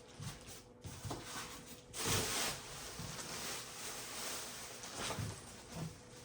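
Rustling and light knocks from things being handled, with a louder rustle about two seconds in.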